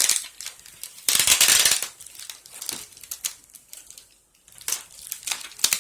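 Parcel packaging crinkling and rustling as it is pulled open by hand. There is a loud rustle lasting about a second, starting about a second in, and a series of crackles near the end.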